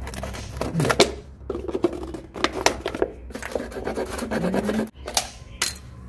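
Plastic drink bottle being cut open at the bottom, the plastic crackling and snapping in irregular clicks as the blade works through it.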